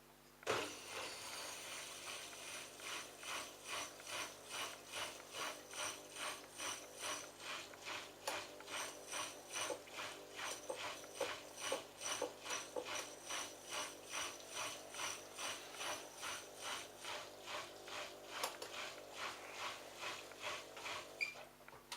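Bosch washing machine's drain pump running on the drain cycle, with a regular rattling pulse about twice a second. It starts about half a second in and cuts off just before the end.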